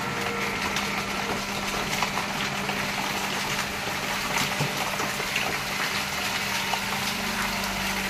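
Electric motor and hydraulic pump of a baling press's power pack running steadily, with a constant low hum.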